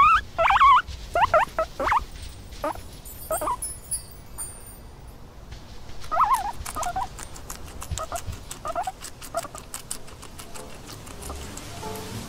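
Guinea pig squeaking: a quick run of high, wavering squeaks, then scattered single squeaks. Light rapid clicking runs through the second half.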